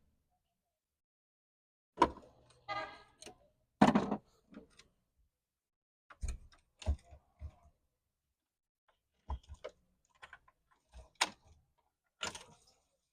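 Scattered clicks and knocks from parts and tools being handled while a Honda car fuel pump is opened, coming in irregular clusters with silent gaps and a longer scraping sound about three seconds in.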